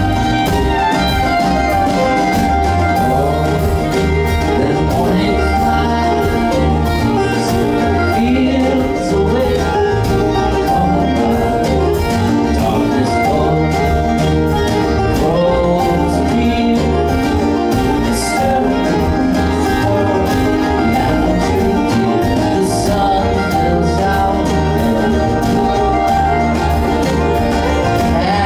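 Live acoustic string band playing a bluegrass-style tune: banjo, acoustic guitar, upright bass, fiddle and mandolin together, with a steady bass line under them.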